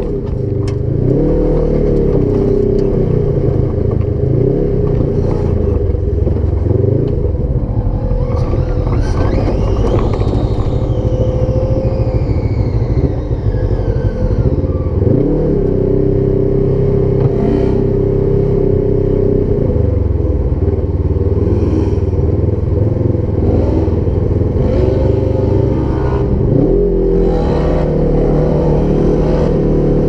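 Side-by-side UTV engine revving hard, its pitch rising and falling again and again, with scattered clattering knocks. About ten seconds in, a high whine climbs and then slides down over a few seconds.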